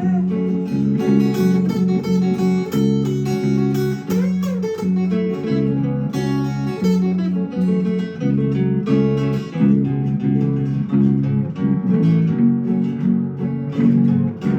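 Instrumental break of a country song: guitar picking and strumming a melody with a steady rhythm, no singing.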